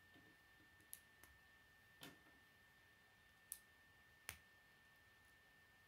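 Plastic K'nex rods and connectors snapped together by hand: about five light clicks, the last two the sharpest, over a faint steady high-pitched hum.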